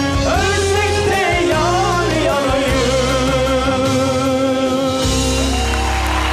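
Turkish pop ballad with band accompaniment, a male singer holding long, wavering notes with heavy vibrato.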